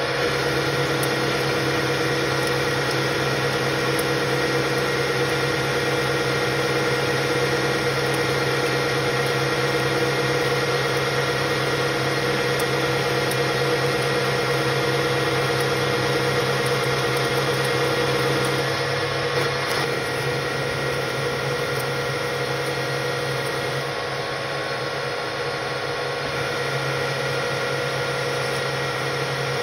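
AL-1324 centre lathe running steadily under power, its gearing giving a steady whine while it turns a round workpiece. The sound drops a little about two-thirds of the way through.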